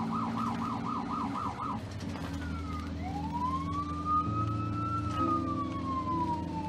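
Ambulance siren heard from inside the vehicle: a fast yelp that stops about two seconds in, then one slow wail rising and then falling in pitch, with a low steady drone underneath.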